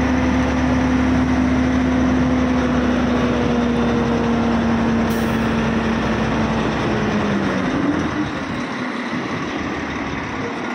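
Heavy truck tractor unit's diesel engine running with a steady low rumble and hum. The hum drops in pitch and fades out about seven seconds in, leaving fainter background noise. A brief high hiss comes about five seconds in.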